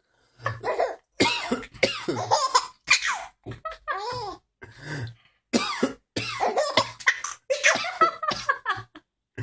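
A man coughing over and over in short bursts, and a baby laughing at the coughs between them.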